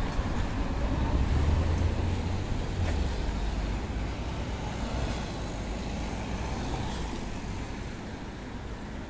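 City street traffic: a motor vehicle's low engine rumble, loudest in the first few seconds and then fading away, over steady traffic noise.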